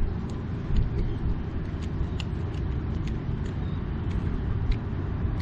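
Wind buffeting the microphone: a steady low rumble throughout, with faint scattered clicks over it.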